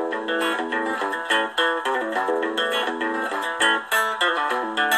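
Background music: a quick, busy run of pitched notes.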